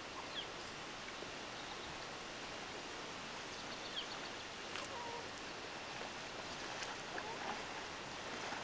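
Steady outdoor ambient hiss with a few faint, brief chirps or calls scattered through it.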